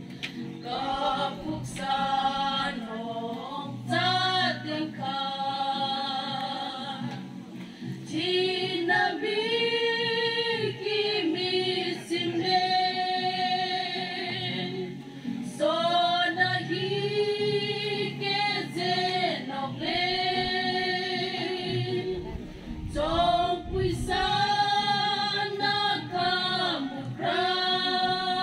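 A small group of women singing together, in sustained phrases of several seconds separated by short breaths.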